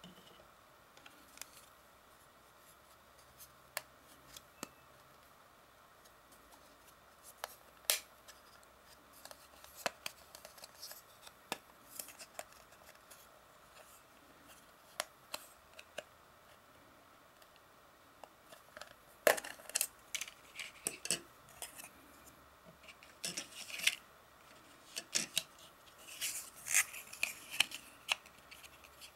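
Hard plastic and rubber parts of a rugged two-piece phone case being handled and fitted together: scattered sharp clicks, snaps and light scraping, sparse at first and coming in denser clusters in the last third.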